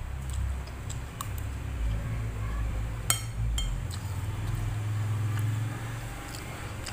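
A metal spoon scraping and clinking against a ceramic plate while noodles and rice are scooped up, with one sharp clink about three seconds in, over a steady low hum.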